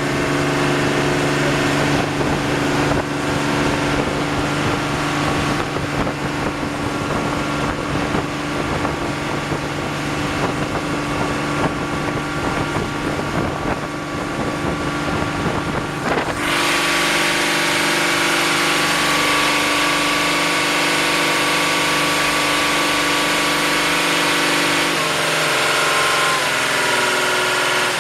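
A 30-foot Shintaku Zosen boat's engine running steadily, with rushing wind and water noise over it. About two-thirds of the way through, the sound changes abruptly to a brighter, steadier engine sound.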